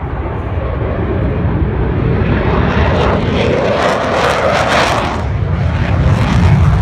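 Fighter jet's engine roar as it makes a low pass, swelling to a peak about two-thirds of the way through and then easing off over a steady low rumble.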